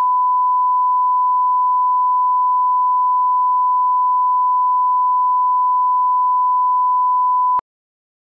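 Steady 1 kHz line-up reference tone played with the colour bars, a single pure tone held at one level that cuts off abruptly near the end. It is the test tone for setting audio levels at the head of a broadcast tape.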